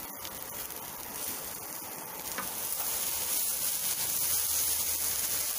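Chopped onions and tomatoes sizzling in hot oil in a pan with roasting spices, getting louder about two seconds in.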